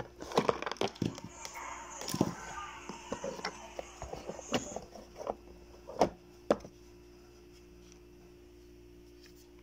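Hard plastic clicks and knocks as a Black+Decker cordless drill is handled and lifted out of its moulded plastic carrying case, a quick run of sharp knocks over the first six and a half seconds, the loudest about six seconds in.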